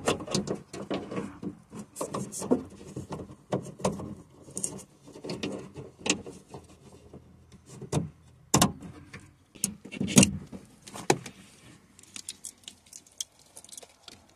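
Irregular clicks, knocks and rustling of a wiring harness and its plastic connectors being handled and fed through a car door, with a couple of sharper knocks a little past the middle.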